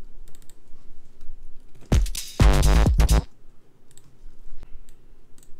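Electronic drum samples played back from music production software: two short tom-like hits that drop in pitch about two seconds in, then a longer pitched drum sound. Mouse and computer keyboard clicks follow in the second half.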